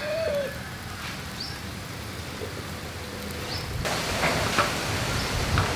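Birds calling over a steady background hiss. About four seconds in, the hiss grows louder and a few sharp clicks come through.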